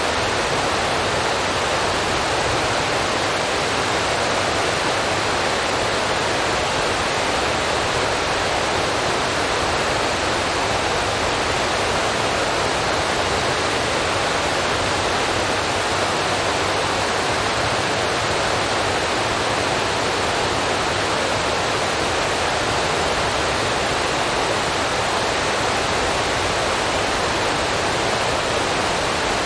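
Steady, unchanging rushing hiss of noise, even across low and high pitches, with no tones, knocks or speech.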